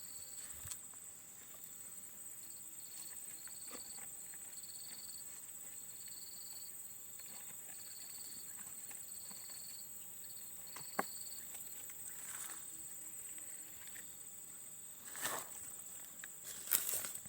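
An insect in an oil palm trunk calling in a repeated high chirp, about one chirp a second, over a steady high whine; the chirping stops about ten seconds in. A few sharp knocks and scrapes of a tool prying at the trunk are heard, the loudest near the end.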